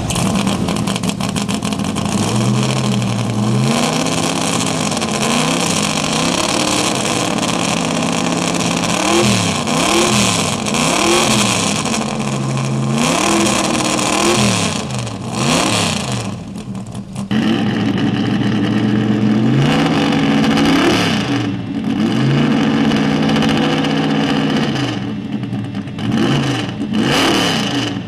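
1969 Corvette race car's V8 running just after being started, blipped repeatedly so the revs rise and fall again and again. It dips briefly a little past halfway, then runs on at a steadier speed with a few more blips near the end.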